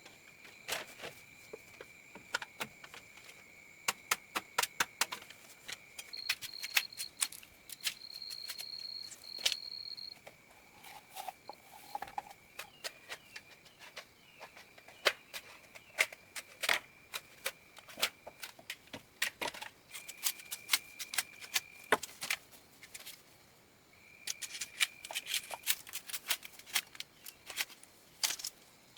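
Many sharp, irregular clicks and knocks, as from hand work with tools or materials, over a steady high-pitched drone that stops and starts, like insects.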